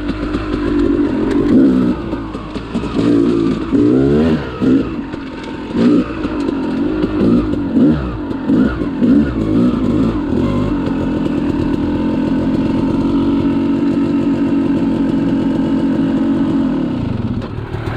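2001 Yamaha YZ250 two-stroke dirt bike engine, bored to 295 cc with an Eric Gorr woods-port kit, being ridden. It revs up and down repeatedly with the throttle, then from about halfway through holds a steady pitch at speed until the revs drop near the end.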